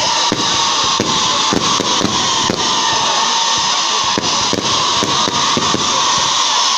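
Fireworks display going off thick and fast: irregular sharp bangs and cracks over a continuous loud hiss of rising rockets.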